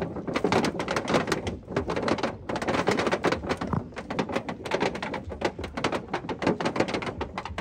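Puppy digging with its front paws in dirt and debris: rapid, continuous scratching with a few brief pauses.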